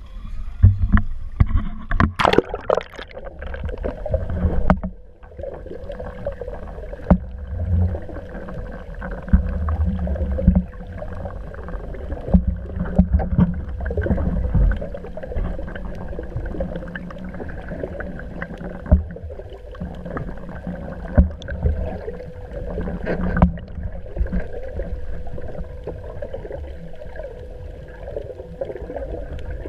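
Sounds of a small boat out on the water: a steady low rumble with scattered knocks and clicks against the boat, and a faint steady hum.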